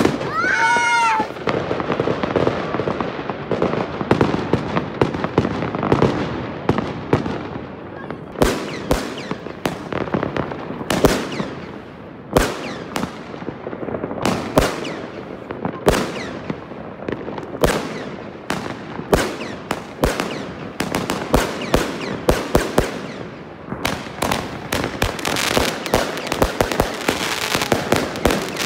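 Fireworks and firecrackers going off all around: a steady, irregular barrage of sharp bangs and crackles that overlap. A whistle falls in pitch about a second in, and the bangs come thicker in the last third.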